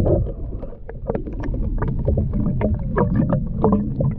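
Small-boat sounds from a Hornbeck canoe on the water: many scattered small knocks and splashes at the hull over a steady low rumble.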